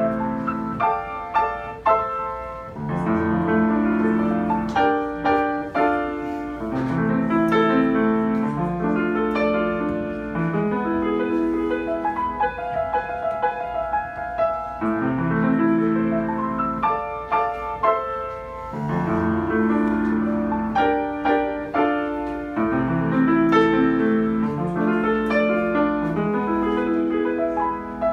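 A child playing a solo piano piece: low chords sustained under a melody line, in repeated phrases with brief breaths between them.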